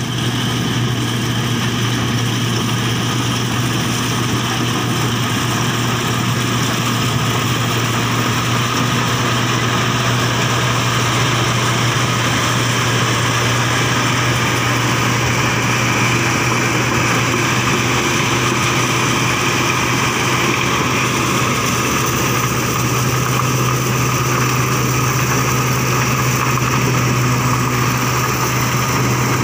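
Crown MCH PJ-2000 Star combine harvester running steadily under load as it cuts and threshes standing corn: a constant engine drone with machinery noise over it.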